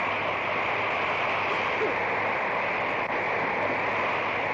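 Dust-storm wind blowing hard over a covered wagon: a steady rushing noise with a few faint brief whistles in it.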